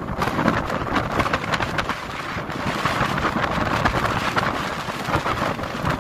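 Wind buffeting the microphone: a continuous rough, crackling rush with low rumble.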